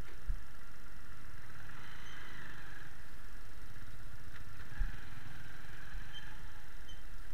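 Motorcycle and traffic engines idling at a stop, a steady muffled running noise, with two low thumps, one just after the start and one a little before five seconds in.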